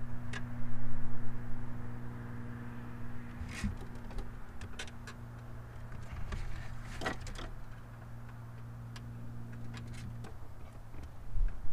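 Wiring harness being handled at a car's fuse panel: light plastic clicks and rustles of wires and their bag, over a steady low hum that cuts off about ten seconds in.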